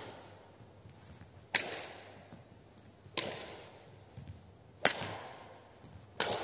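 Badminton rackets striking a shuttlecock back and forth in a doubles rally: four sharp hits about a second and a half apart, each echoing in a large sports hall.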